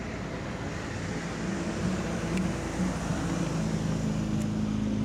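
A distant motorboat's engine drones steadily and gets gradually louder as the boat approaches.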